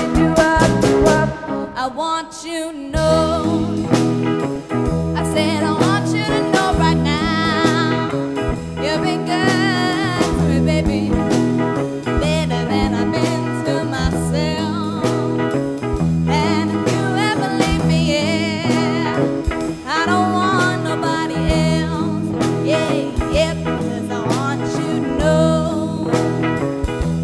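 Live band playing: drum kit and electric guitar under sung vocals, with a brief drop in the sound about two seconds in.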